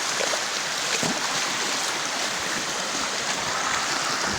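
Steady rush of flowing water, an even hiss with no break.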